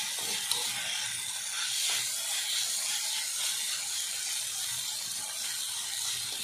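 A metal spatula scraping and stirring drumstick thoran around a metal pan, with small clicks against the pan, over a steady sizzle as the mix fries dry, its water cooked off.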